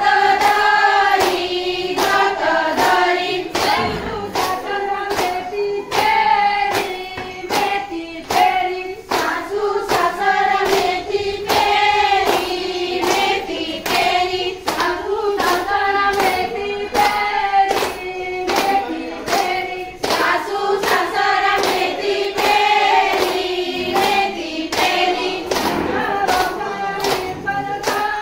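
A group of women singing a traditional fugdi dance song together, with steady hand claps keeping the beat.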